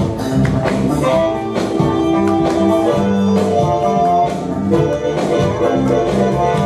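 A blues song playing, with held instrumental notes over a light rhythm.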